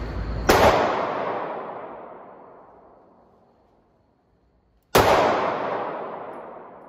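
Two shots from a Ruger MAX-9 9mm pistol, about four and a half seconds apart. Each sharp crack is followed by a long echo in the indoor range that dies away over a couple of seconds.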